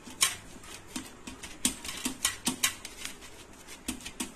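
Oiled fingers patting and pressing a ball of soft, stuffed poli dough flat on an oiled banana leaf: irregular soft, sticky pats, two or three a second.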